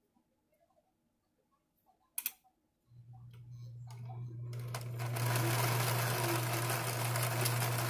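Electric household sewing machine stitching fabric: a single click about two seconds in, then the motor starts about three seconds in, builds speed over the next two seconds and runs steadily with a low hum.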